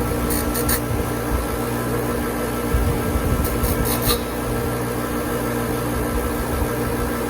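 Bench grinder motor running steadily with a constant hum. Twice, once near the start and again about three and a half seconds in, a few short strokes of grinding come in as the steel tip of a broken flat screwdriver is pressed against the wheel to square it off.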